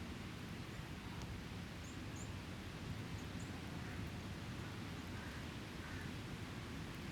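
Beach ambience: a steady low rush of surf, with a few faint high bird chirps about two and three seconds in and a single faint crackle from the campfire.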